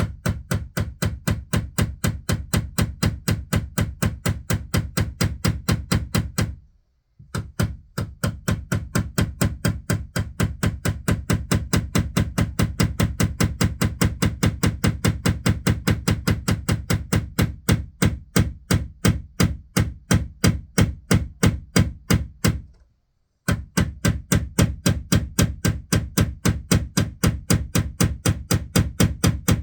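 A hammer striking a nail in rapid, even blows, about four or five a second, stopping briefly twice.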